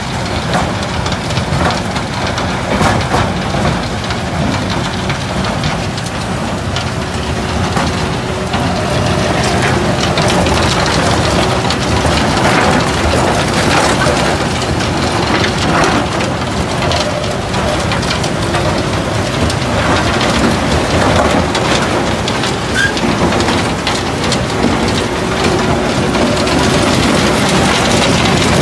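Arjes Impaktor 250 mobile impact crusher running and crushing concrete: a dense, continuous clatter and rattle of broken concrete through the machine over a steady engine drone.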